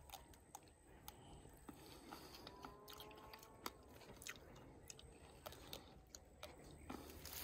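Near silence, with faint scattered clicks and rustles from hands handling a bunch of green grapes and snipping it from the vine with pruning shears.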